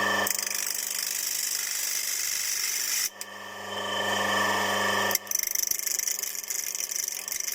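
Small electric grinding tool running steadily, its motor whining under a high hiss of small metal being ground as the worn tooth of a chainsaw starter ratchet is reshaped. The grinding dips about three seconds in, comes back about five seconds in, and comes and goes rapidly near the end as the part touches the tool on and off.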